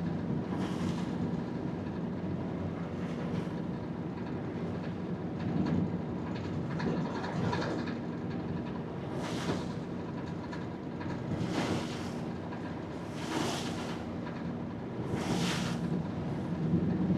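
Vaporetto water bus's diesel engine running at a steady cruise. Over it, four short rushing whooshes come about two seconds apart in the second half.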